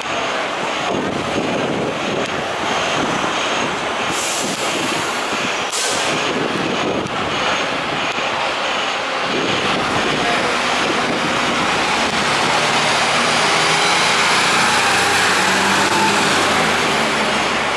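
Diesel engine of a Mercedes-Benz Atego fire engine pump ladder pulling away and driving past close by over street noise, growing louder in the second half as it passes. There are two short air hisses about four and six seconds in.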